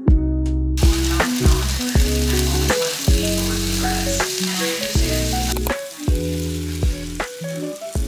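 Food frying in a hot pan: a sizzle starts about a second in and eases a little after about six seconds, over background music with a steady beat.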